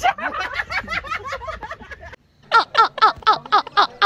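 A quick run of short pitched calls stops abruptly about two seconds in, after a brief cut to silence. Then comes loud, hearty human laughter in even 'ha' bursts, about three or four a second.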